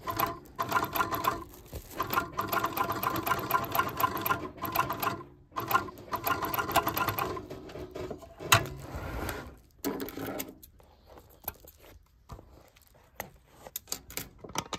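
Sewing machine stitching a patch onto a leather jacket, running in rhythmic runs of a few seconds with short stops between them. There is a sharp knock a little past the middle, and only scattered clicks near the end.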